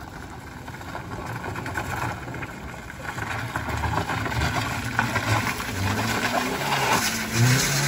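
Small front-wheel-drive hatchback's engine working hard up a steep, wet, rutted climb, growing steadily louder as the car comes closer, with tyre noise over broken wet road.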